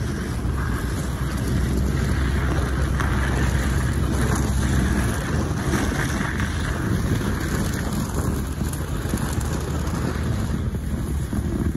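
Pickup truck driving slowly: its engine runs with a steady low hum, under tyre and wind noise buffeting the microphone. The engine hum eases off about halfway through.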